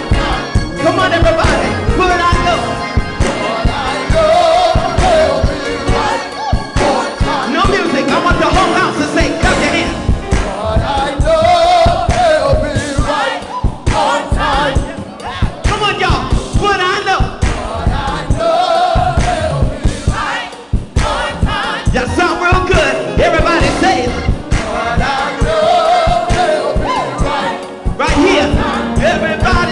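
Gospel choir singing with a band accompanying it.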